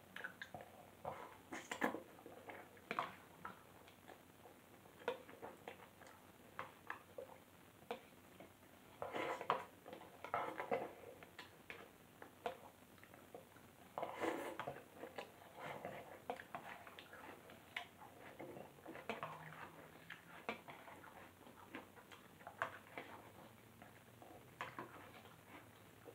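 Eating sounds: a metal spoon clicking and scraping against a small plastic bowl in scattered, irregular taps, with busier stretches about a third and halfway through.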